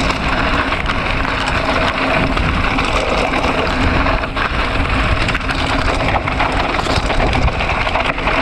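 Mountain bike rolling fast down a dry, loose dirt trail: a steady crunching and crackling of knobby tyres on dirt and small stones, with many small knocks and rattles from the bike over the bumps and wind buffeting the microphone.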